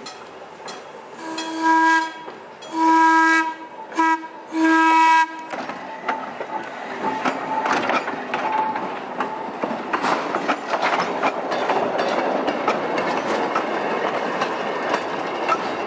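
Electric interurban car No. 715 sounding its air horn in the grade-crossing pattern (two long blasts, a short one and a long one) as it approaches. It then rolls past close by, its wheels clicking and rumbling over the rail joints.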